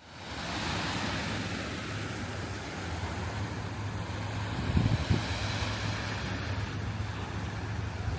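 Outdoor ambience by the river: wind buffeting the microphone over a steady hiss and low rumble of distant traffic, with two brief low thumps about five seconds in.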